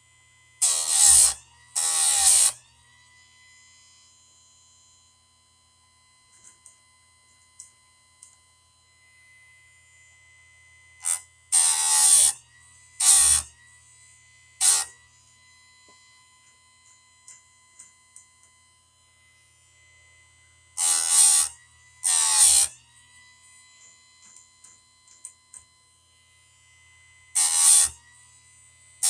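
Electric chainsaw-chain grinder running with a steady whine, its wheel grinding chain teeth in short rasping passes of about a second, mostly in pairs, eight in all. After each pass the motor's pitch dips under the load and climbs back.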